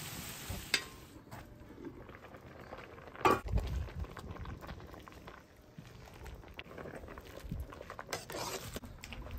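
Kitchen sounds: a frying sizzle that stops just under a second in, then scattered clinks and knocks of utensils and dishes. The loudest is a sharp knock a little over three seconds in.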